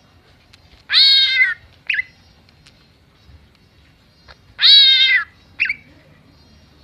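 Cucak ijo (green leafbird) mimicking a cat's meow: two drawn-out meows, about a second in and again near five seconds, each followed by a short clipped note.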